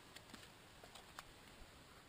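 Near silence with a few faint, short clicks and ticks of small objects being handled, about four or five scattered through the two seconds.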